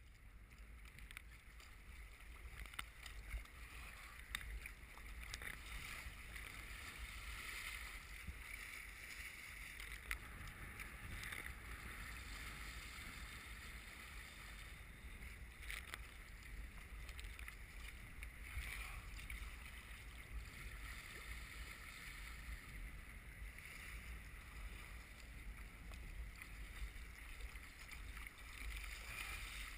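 Water splashing and hissing steadily along the hull of an Eddyline Raven sea kayak as it is paddled through choppy, wind-driven waves, with a few sharper splashes. Strong wind is buffeting the microphone as a steady low rumble.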